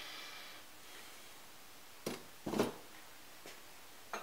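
Blown glass vessels being handled and set down on the annealer shelf: a couple of soft knocks about halfway through and a short sharp click near the end.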